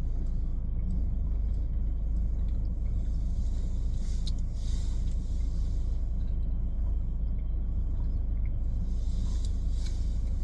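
Steady low rumble inside a car's cabin with the engine running, with a few faint small clicks.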